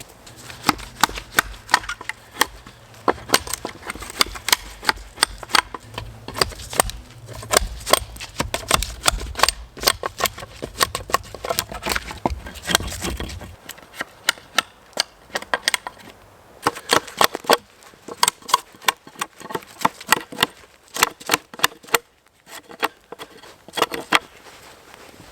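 Footsteps crunching through snow and woodland litter: dense, irregular sharp crunches and snaps, over a low rumble that stops about halfway through.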